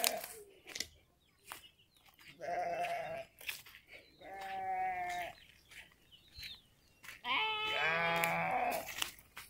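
Young calf bawling: three drawn-out, steady-pitched calls a couple of seconds apart, the last the longest.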